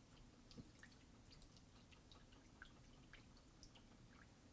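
Near silence, with faint scattered small ticks and drips from a paintbrush being cleaned out.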